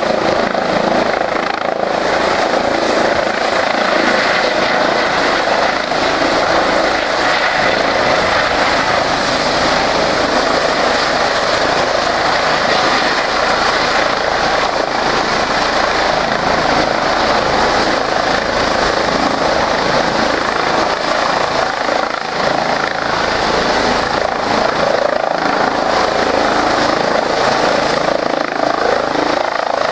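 Airbus EC135 helicopter's twin turbines and main rotor at lift-off power as it rises off the pad into a low hover. A loud, steady rotor noise with a thin high turbine whine over it.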